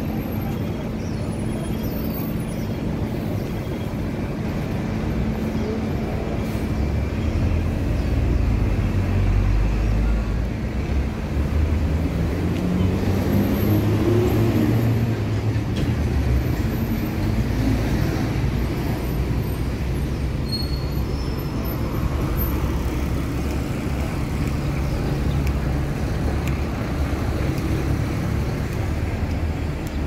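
Road traffic: buses and cars running along a road, a steady engine rumble and tyre noise, with one engine rising in pitch as it speeds up a little before halfway.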